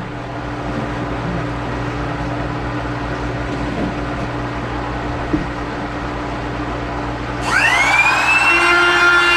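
Steady hum of a pool pump running, then about three quarters of the way in an electric router switches on, its whine rising in pitch as the motor spins up and then holding steady.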